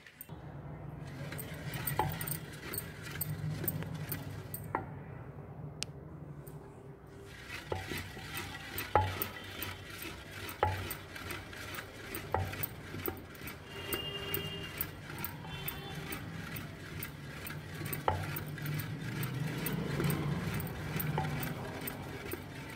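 Wooden ghota churning boiled chickpea greens in water inside a clay handi: continuous wet stirring and churning, with a sharp knock of the stick against the pot every second or two.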